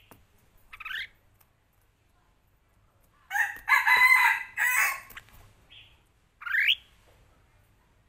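Red-whiskered bulbul calling: a short rising note about a second in, a louder, longer call of about two seconds in the middle, and another quick rising note near the end.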